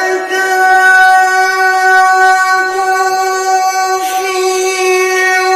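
A male qari reciting the Quran, holding one long, steady high note with a brief break about four seconds in.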